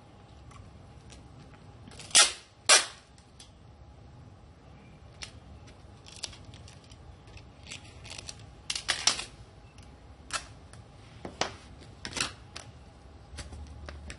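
Irregular sharp knocks and clicks from handling something: two loud ones about half a second apart about two seconds in, a quick cluster around nine seconds, and a few more near the end.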